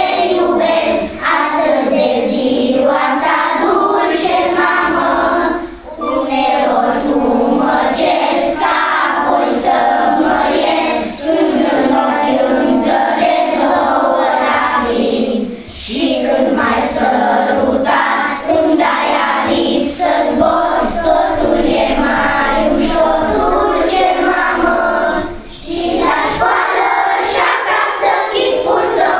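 A class of young children singing a song together in chorus, with short breaks between lines.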